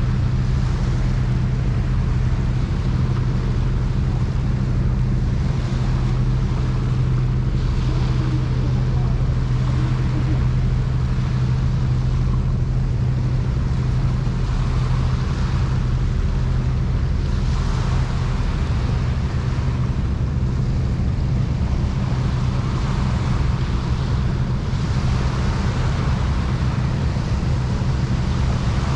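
A ship's engine droning steadily at a low, even pitch, with the rush of wind and water wash swelling and fading over it every few seconds.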